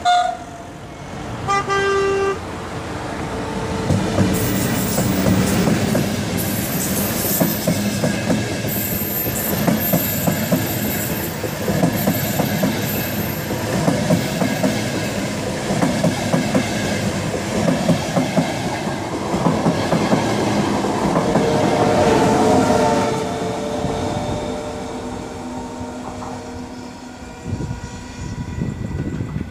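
The RFI Diamante diagnostic high-speed train sounds its horn in two short blasts, then passes at speed: rapid clattering of wheels over the rails with a thin high whine, loudest about three quarters of the way through, then fading as the train pulls away.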